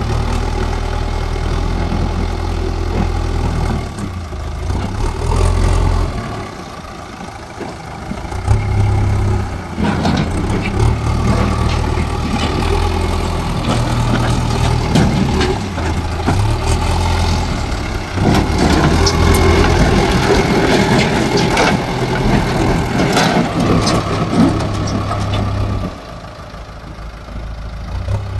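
Diesel engine of a JCB earthmoving machine running at work, its low hum stepping up and down in pitch as it is throttled, with a few metallic clanks. It drops quieter about six seconds in and again near the end.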